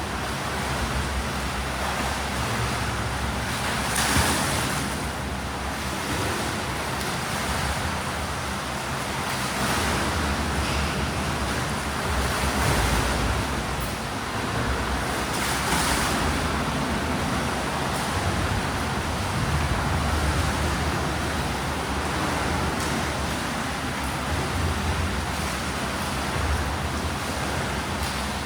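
Swimming pool water noise: a steady wash of splashing and churning water from swimmers, swelling every few seconds.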